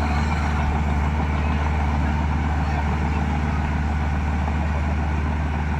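Heavy diesel engine of an earthmoving machine or dump truck running steadily, a constant low drone.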